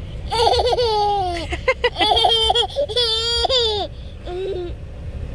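A toddler laughing in high-pitched peals for about four seconds, followed by a few short vocal sounds near the end.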